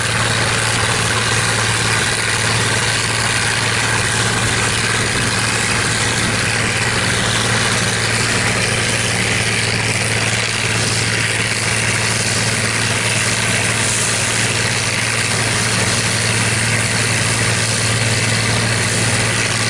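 New Idea 705 Uni System power unit and Uni Chopper forage harvester running steadily under load while chopping standing corn for silage. It is a steady low engine hum under a broad rushing noise from the chopper.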